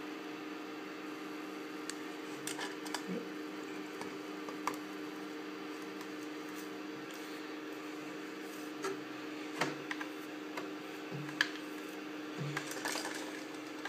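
Steady low electrical hum. Over it come a few light clicks and taps as a 3D-printed plastic part and a utility knife are handled over the printer's glass bed. The loudest tap comes about eleven seconds in.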